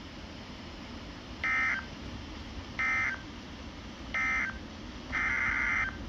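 Emergency Alert System SAME digital data tones: three short, buzzy bursts about a second apart that close one alert as its end-of-message code. A longer burst near the end begins the header of the next alert.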